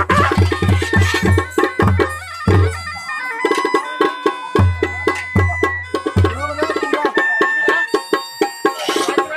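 Masakbeen, the Pahadi bagpipe, playing held notes over a beat of deep drum strokes from the bin baja band. The drum beat drops out briefly twice, and sharp clicking strikes run through it.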